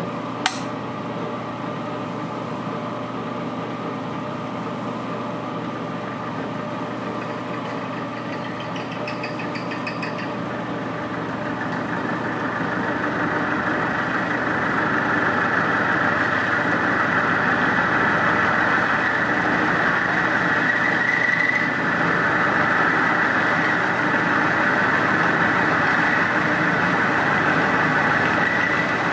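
Milling machine spindle running a roughing end mill at 350 RPM, cutting a flat into a round bar. The cutting noise grows louder at around twelve seconds in as the cutter bites deeper, then holds steady.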